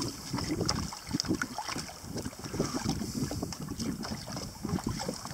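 Wind buffeting the microphone over water lapping and slapping irregularly against the hull of a sit-on-top kayak on the open sea.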